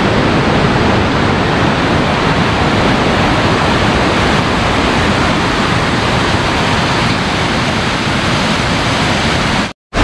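Loud, steady rush of waterfall white water tumbling over rock slabs. It cuts out for a moment just before the end.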